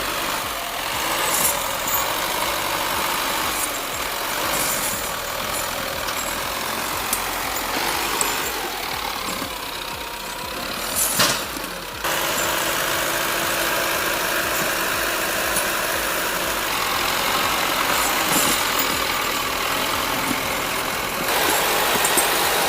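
An engine running steadily, with the sound changing abruptly about halfway through and again near the end.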